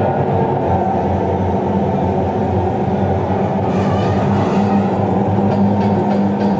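Heavy machinery running with a steady low drone and hum, typical of a sand-drain rig working on the seabed.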